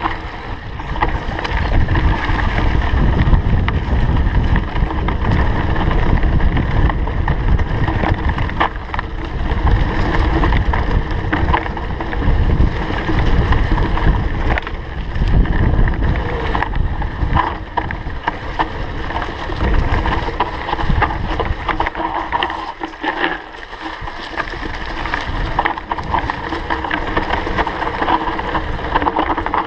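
Carbon hardtail mountain bike running down a dirt singletrack: a steady rumble of tyres on the trail, with small knocks and rattles from the bike and wind buffeting the action camera's microphone. The rumble eases briefly about three-quarters of the way in.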